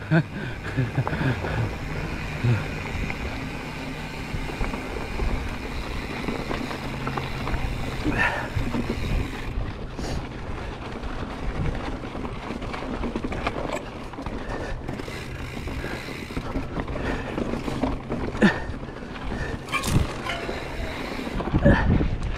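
Mountain bike ridden over a rocky dirt trail: tyres crunching on gravel and the bike rattling over the rough ground, with wind on the microphone and a few sharp knocks from rocks.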